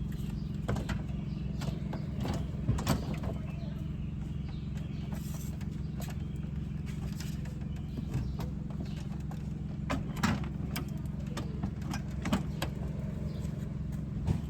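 Scattered plastic knocks and clicks as a car's front bumper cover is handled and hung on its mounting hooks, over a steady low hum.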